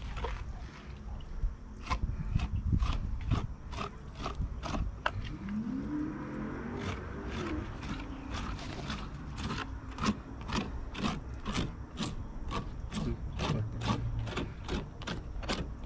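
Cutters snipping through an alligator gar's armored scale skin: a run of sharp crunching clicks, irregular at first, then about two to three a second.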